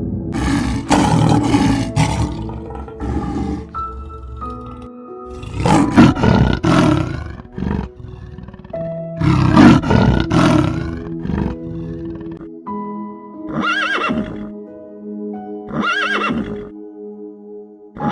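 A series of loud animal calls over steady background music: three long calls in the first half, then two shorter calls that rise and fall in pitch, about two seconds apart.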